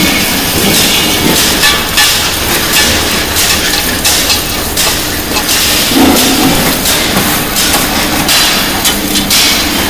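Submerged arc welding station on an LPG cylinder girth seam running: a loud, continuous rattling clatter and crackle with irregular surges as the cylinder body turns under the flux-covered welding head.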